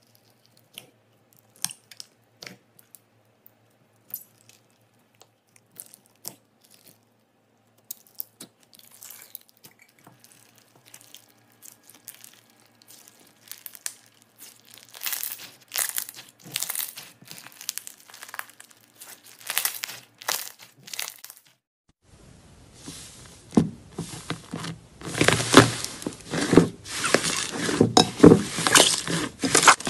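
Fingers working clear slime packed with small beads, giving sparse sharp clicks and pops that grow into dense crackling. About 22 s in, the sound changes to louder, denser squishing and crackling as thick purple slime with beads is kneaded by hand.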